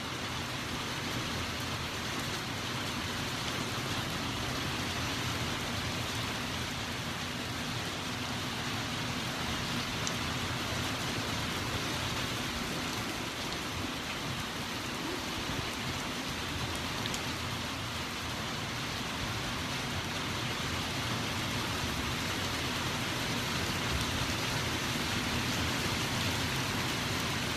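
Steady, even hiss of a thunderstorm, like rain falling, with no distinct thunder claps; it grows a little louder near the end.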